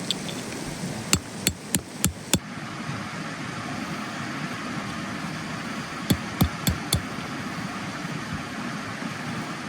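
Two quick runs of sharp knocks, five strikes and then four a few seconds later, over a steady background hiss.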